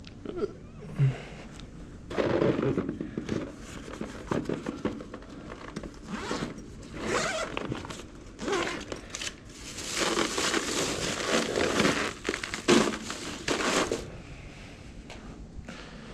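Irregular rustling and crinkling handling noise close to the microphone, starting about two seconds in and dying down a couple of seconds before the end.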